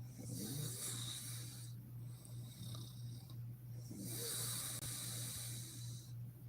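A sleeping woman snoring: two long, breathy snoring breaths, the second starting about four seconds in, over a steady low hum.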